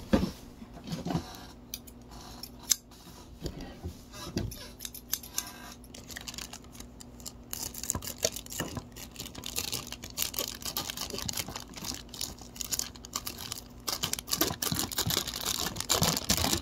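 Clear plastic packaging bags crinkling and rustling as figure parts are handled, with scattered clicks and taps. The crinkling is sparse at first and grows dense and steady in the second half.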